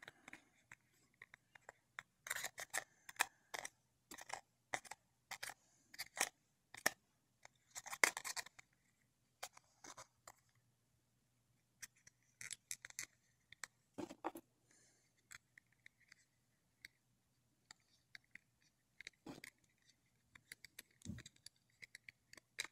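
Fingers working at a metal pin, taking pieces off it: faint, irregular clicks, scrapes and scratches.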